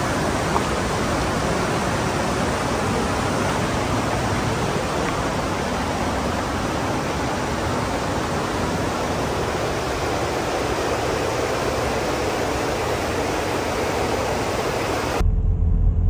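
Steady, even rushing noise of fast-flowing water. About a second before the end it cuts to the low rumble of a car driving.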